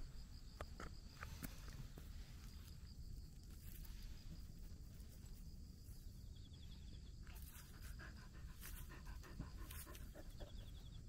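Shiba Inu panting softly and sniffing at the ground close by, with a few faint clicks. A faint, pulsing high trill of insects runs in the background.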